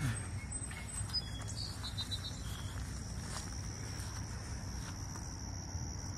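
Steady high-pitched insect chorus drones on without a break, with a few brief higher chirps about one to two seconds in.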